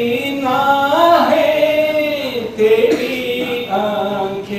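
A poet singing a line of an Urdu ghazal in tarannum, the melodic chant of mushaira recitation. A single unaccompanied voice draws out the syllables in long held notes, rising and then falling, in two phrases.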